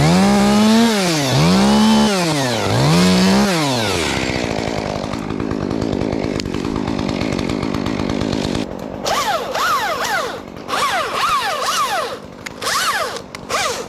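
Chainsaw revving up and down while cutting a cottonwood limb in small increments. There are three long revs at the start, a steadier stretch in the middle, then a run of short, quick revs near the end.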